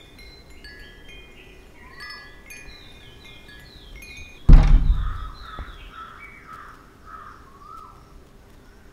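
Horror-film score: tinkling chime tones in short stepping runs, with one sudden deep boom about four and a half seconds in that rings away over a second or so.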